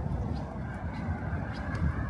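Outdoor city street ambience: a steady low rumble with faint, regularly spaced ticks.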